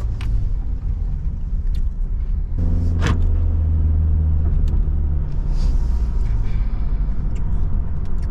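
Low rumble of a car's engine and road noise heard inside the moving car's cabin, growing louder a few seconds in, with a single sharp click at about the same moment.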